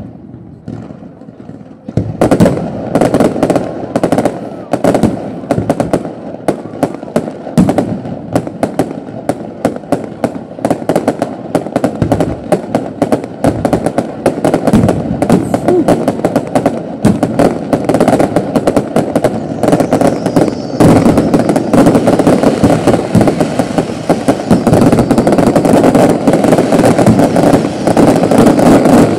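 Fireworks display: a rapid, continuous barrage of bangs and crackles that starts about two seconds in and grows denser and louder about twenty seconds in.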